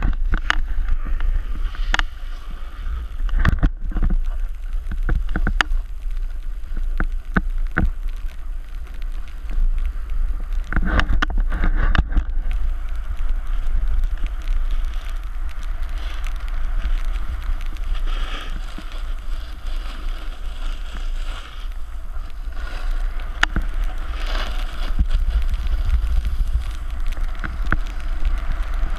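A snowboard sliding and carving over snow, a steady scraping hiss, with wind buffeting the pole-mounted GoPro's microphone as a constant low rumble. Scattered clicks and knocks from handling the gear in the first dozen seconds, while the rider is still sitting and getting going.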